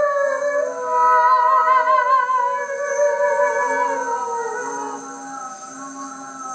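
Four overdubbed wordless vocal layers holding sustained notes in a chord with a slight vibrato, the pitches gliding slowly and sliding down about four seconds in, then growing quieter.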